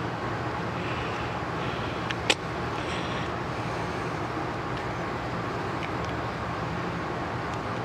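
Steady hum and hiss of a running air compressor, with one sharp click about two seconds in as caliper parts are handled on the bench.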